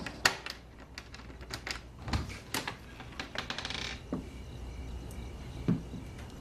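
Keys and a door latch being handled: a run of small sharp clicks and clinks, a quick rattling tick near four seconds in, then two dull knocks.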